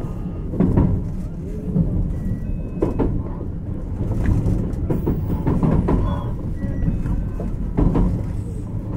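Running sound inside a JR Kyushu 817 series electric train car: a steady low rumble of wheels on the track with irregular knocks and clacks, and a few brief faint whining tones.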